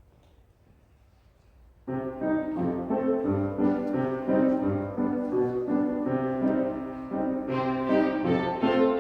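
Quiet room for about two seconds, then a violin ensemble with piano starts a piece suddenly, over a steady rhythmic bass line. The sound grows fuller and brighter near the end.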